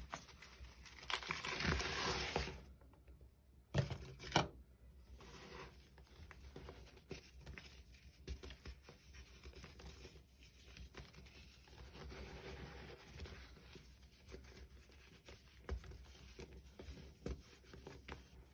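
Baking soda poured into a sink with a loud hiss, then two sharp knocks. After that, hands squeeze and crumble clumps of baking soda, a steady soft crunching and crackling.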